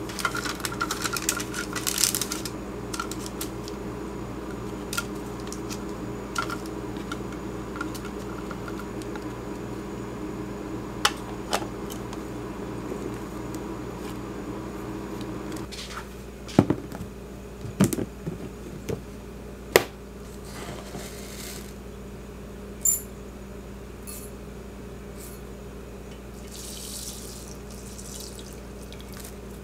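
Plastic food container and its snap-on lid being handled on a tiled counter, with scattered clicks and several sharp knocks around the middle, over a steady low hum. Near the end, water is poured from a glass jug into a glass bowl.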